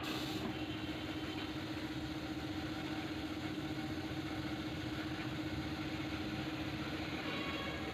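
Air compressor running steadily with a constant hum, supplying air to a paint spray gun.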